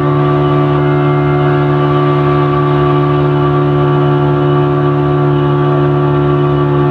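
Motorboat engine running at a steady speed: a constant, loud droning hum that holds one pitch throughout.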